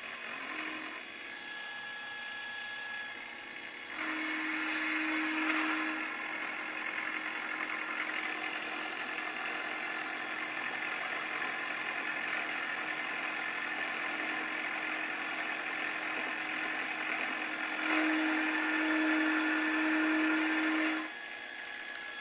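Vertical milling machine cutting the end of a steel square tube with a 3/4-inch roughing end mill, a light cleanup pass to square the end. The spindle and cut run steadily, get louder about four seconds in and ease off shortly before the end.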